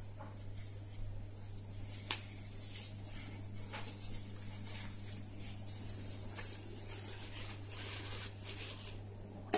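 Steady low electrical hum and hiss, with a few faint light clicks from handling the plastic nail form and tools.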